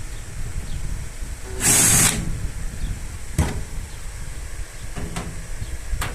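A power screwdriver runs in one short burst about a second and a half in, followed by a few sharp clicks.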